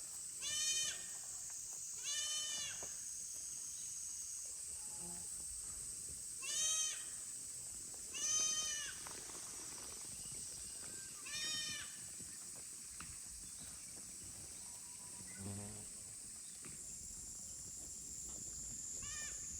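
Young goats bleating: about six separate high-pitched calls, a few seconds apart, over a steady high background drone.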